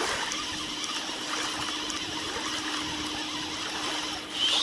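Steady rush of water with a faint, steady hum underneath, and a short high chirp near the end.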